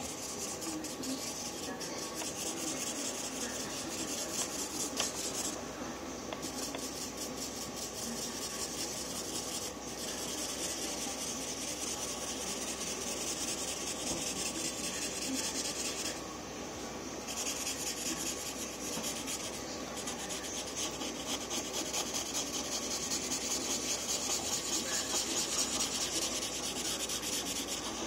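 Felt-tip marker scribbling rapidly back and forth on paper, colouring in an area in quick scratchy strokes, with a couple of short pauses.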